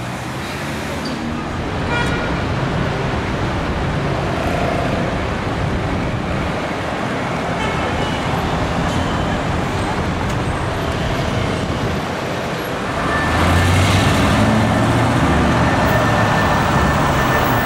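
City street traffic: cars driving past with a steady road noise, and a louder car engine passing close by in the last few seconds.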